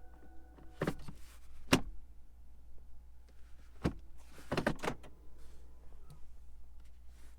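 A small electric motor in the car hums steadily and stops with a clunk just under a second in, followed by a few sharp clicks and knocks of interior controls or trim being handled.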